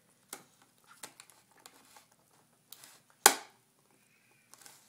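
Light, scattered clicks and rustles of handling, with one sharp click about three seconds in.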